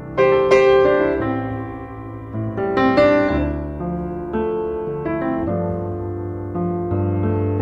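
Background piano music: slow chords and single notes, each struck and left to fade.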